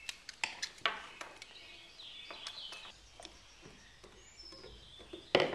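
Small metal clicks and scrapes of drum brake parts being handled as a brake return spring is fitted, with a louder, ringing metallic snap near the end.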